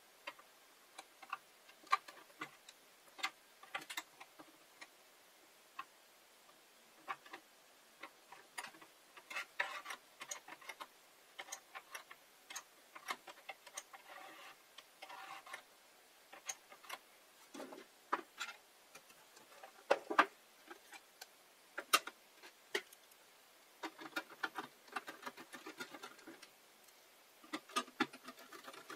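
Scattered, irregular small clicks and taps, with a few short scraping stretches, from hands and tools working on the hot plate's parts during repair.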